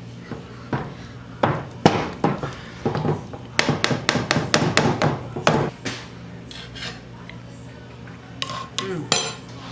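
A metal wire potato masher pounding potatoes in a pot, knocking and clacking against the bottom and sides in irregular strokes. The strokes are busiest in the middle, then ease off before a few more near the end.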